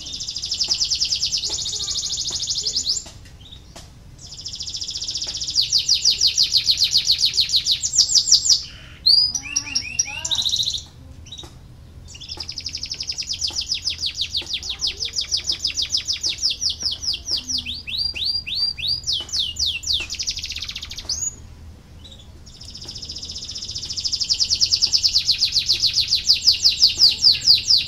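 Canary singing long rolling trills of rapid repeated high notes, four phrases of several seconds each with short breaks, the longest about nine seconds, and a few sweeping whistled notes between the second and third.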